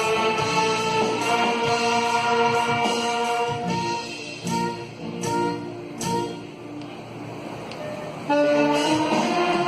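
Church orchestra with brass and saxophones playing a hymn in long held notes; it drops to a softer passage with a few short accents for a few seconds, then comes back in full near the end.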